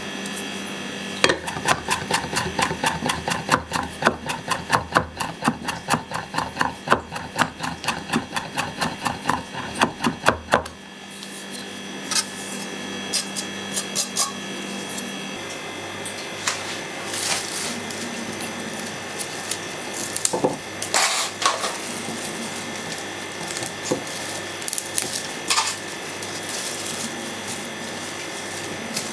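Chef's knife mincing garlic on a wooden cutting board: a fast run of sharp taps, about four a second, that stops suddenly after some ten seconds. Then scattered softer knocks and scrapes.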